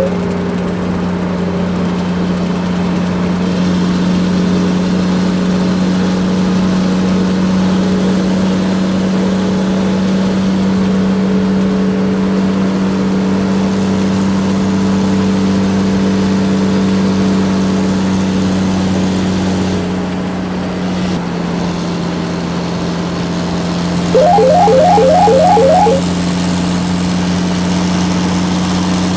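Engine idling with a steady droning hum that steps down slightly in pitch about three quarters of the way through. Near the end, a brief burst of rapid high beeping sounds over it for about two seconds.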